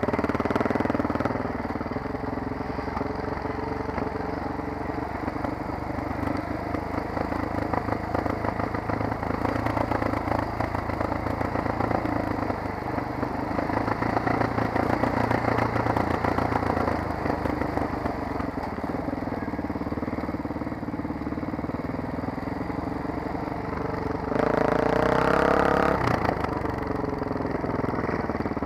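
Enduro motorcycle engine running continuously while riding a dirt trail, its pitch shifting with the throttle. About 24 seconds in it revs up louder with a rising pitch for a couple of seconds, then eases back.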